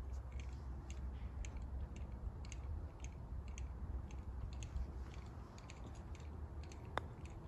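A single sharp click about seven seconds in: a putter striking a golf ball on the green. Before it, a steady low rumble with scattered faint high ticks.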